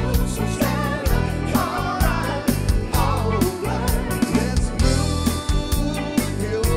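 A band playing a song with a man singing lead over a steady drum beat and bass. The drum kit is built from pots and pans, and an accordion plays with the band.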